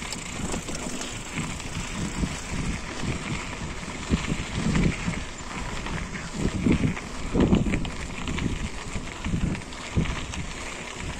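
Forever FM075 mountain bike rolling over a rocky trail, with uneven rattling and knocking from the bumps and wind noise on the microphone.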